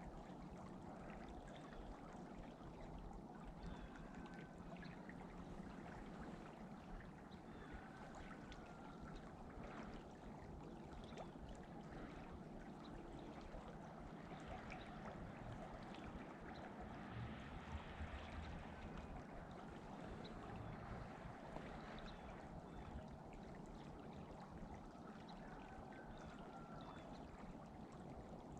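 Faint, steady outdoor ambience: an even rushing haze like moving water or wind, with a few faint short chirps scattered through it.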